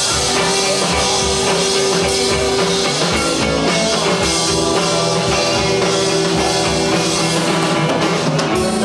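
Live rock band playing an instrumental passage between vocal lines: drum kit keeping a steady beat under guitar.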